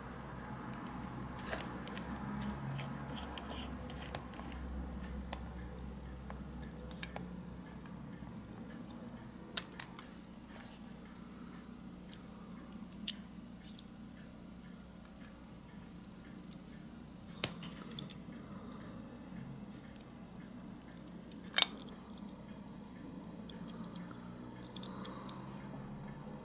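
Scattered small clicks and taps of die-cast toy truck parts and a small screwdriver being handled during reassembly, against a low steady hum. The sharpest click comes about three quarters of the way through.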